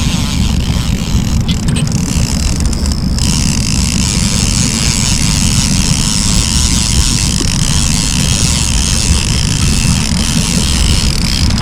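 Fishing boat under way, its motor running steadily with a constant rush of noise. A few faint clicks come between one and three seconds in.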